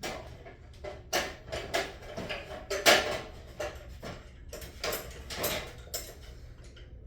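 Rummaging through a container of small hard objects: irregular clattering and knocks, loudest about three seconds in.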